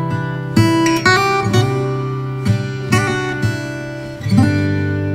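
Background music on acoustic guitar, with a new chord struck about every half second.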